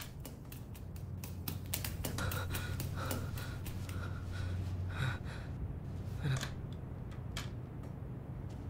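A quick run of clicks and rustles, thinning out after about three seconds, with sharp breaths, over a low steady hum.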